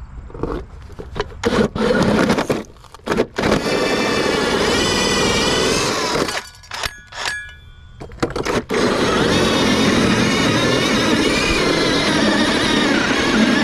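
DeWalt FlexVolt 60V right-angle drill spinning a hole saw through house siding, boring the hole for an air-conditioner line set. It starts in a few short bursts, then runs in two long spells with its pitch wavering under load, with a pause of about two seconds in the middle.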